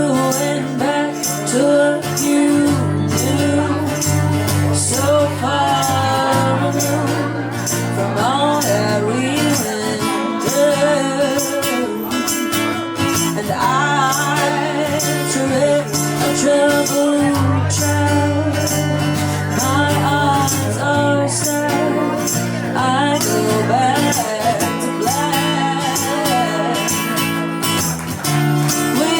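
Live band playing a slow soul song: steady drumbeat with tambourine, a bass line, and a melody sung over it.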